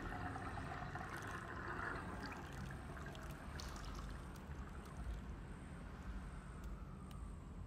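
Faint trickling of water that slowly fades away, with a few light drips.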